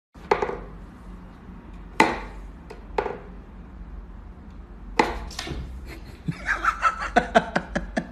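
Wooden knocks and taps from a cat whack-a-mole toy, with sticks pushed up through the holes of a wooden box and a cat's paw batting at them: a sharp knock every second or two. Near the end comes a quick run of short voice-like sounds.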